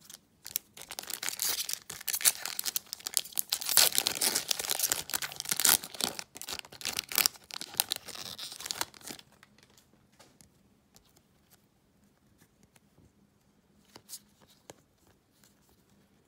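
Wrapper of a 2021 Donruss Football retail card pack being torn open and crinkled for about eight seconds, followed by faint scattered clicks.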